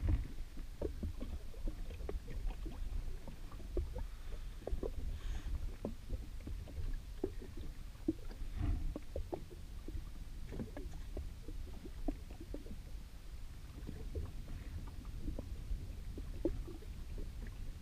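Small waves lapping and slapping irregularly against the hull of an anchored jet ski, over a steady low wind rumble.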